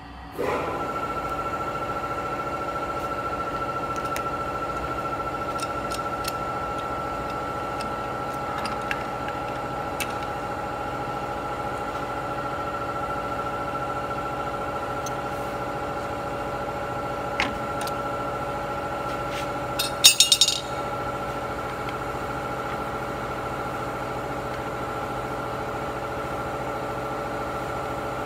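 Steady machine hum with a high whine on top, from a running paper cupcake-cup forming machine. A few light clicks come through, and about twenty seconds in there is a quick rattle of metal clinks as parts are handled.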